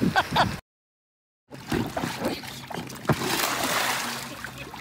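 Water splashing as a person falls into a swimming pool, the splash loudest about three and a half seconds in, after a second of dead silence.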